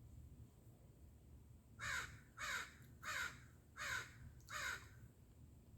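American crow cawing five times in a row, about one caw every two-thirds of a second, each caw dropping in pitch.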